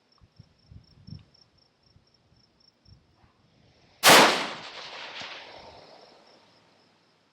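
A single rifle shot about four seconds in, its report trailing off as an echo over a couple of seconds, with a few faint knocks before it. Insects chirp steadily underneath.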